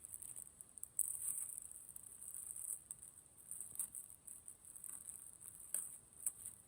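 Scissors cutting open a package: scratchy crinkling and rustling of the packaging, with a few sharp snips or clicks, one about a second in and two near the end.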